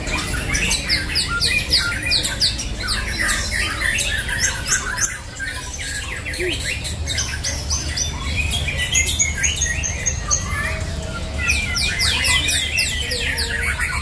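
Caged white-rumped shamas (murai batu) singing against each other in fast volleys of sharp, sweeping whistled notes from several birds at once. The song thins out for a few seconds midway, then comes back dense near the end.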